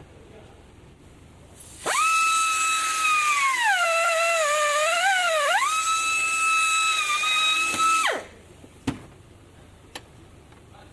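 Small handheld electric power tool motor whining at high speed for about six seconds. Its pitch sags in the middle as the tool bites into the work under load, then recovers before it switches off. A sharp click follows shortly after.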